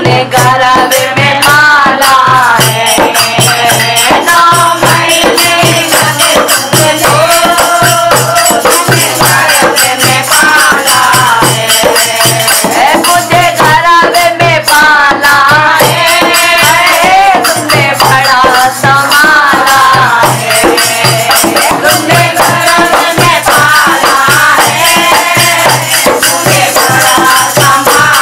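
Bhajan music: a bolt-tuned dholak played by hand in a steady, even beat, with a constant jingling shaker rhythm and a wavering melody line over it.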